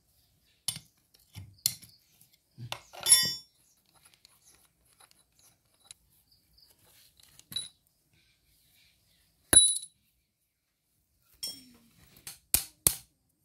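Steel ring spanner clinking against the bolts and metal body of a tractor hydraulic pump as its cover bolts are loosened and taken out: scattered sharp metallic clinks, a few ringing briefly, with a cluster of them near the end.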